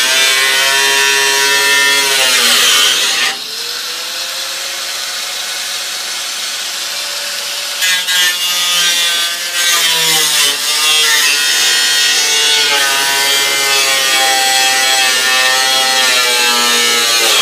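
Grinder with a cutoff wheel cutting through the steel shell of a water heater, its motor pitch dipping as the wheel bites and rising again as it frees up. It runs quieter and steadier for a few seconds in the first half, then comes back to full cutting.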